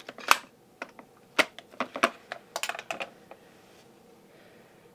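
Sharp clicks and taps of plastic watercolour palette cases being closed and handled on a wooden tabletop, about a dozen in quick succession, stopping a little over three seconds in.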